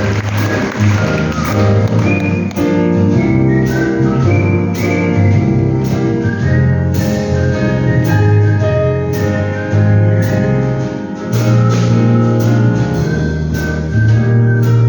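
Artistic whistling: a whistled melody of clear, high notes over a bass-heavy instrumental accompaniment, the whistling entering about two seconds in.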